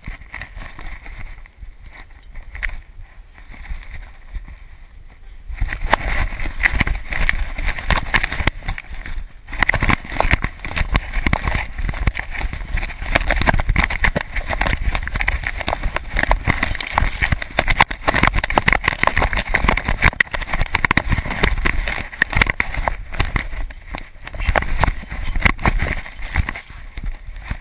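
Close, rapid crunching of snow with rubbing and knocking on the camera, as from a GoPro moving with a dog running through snow. It is sparser for the first few seconds, then dense and heavier from about five seconds in.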